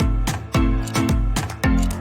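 Background music with a steady, driving beat and deep bass.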